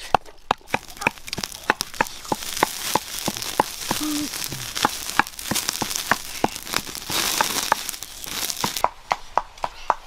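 Chicken legs frying on a hot stone slab over a wood fire: a steady sizzle with frequent sharp pops and crackles. The hiss swells for a couple of seconds, then drops away near the end.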